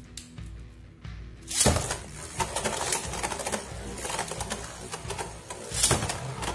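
Two Beyblade Burst tops, Geist Fafnir and Dread Bahamut, land in a plastic stadium about a second and a half in. They then spin with a continuous rattling clatter against its floor and each other, with a louder hit near the end.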